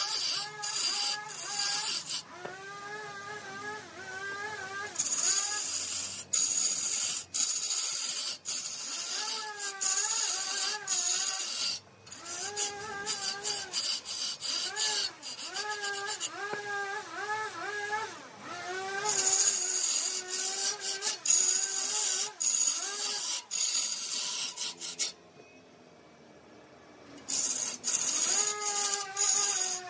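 Large log turning on a wood lathe with a hand-held chisel cutting into it: a rasping, scraping cut with many sharp chip clicks and a pitched squeal that wavers about twice a second as the wood turns. The sound drops out for about two seconds near the end.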